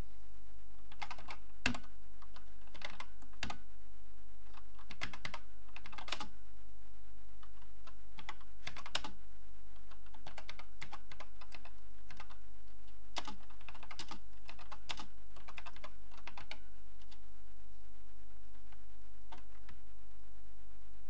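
Acorn Electron keyboard being typed on: runs of key clicks with short pauses between words, thinning to a few single keypresses near the end, over a steady hum.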